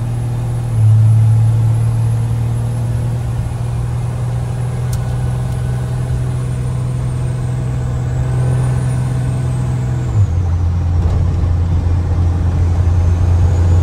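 Cummins diesel engine in a C30 pickup pulling steadily under way, a low drone that gets louder about a second in. About ten seconds in its pitch drops suddenly, typical of the 48RE automatic transmission shifting up.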